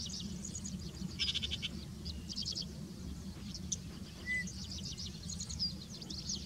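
Several small marsh birds chirping and trilling in quick overlapping calls, with a buzzy call about a second in, over a steady low rumble.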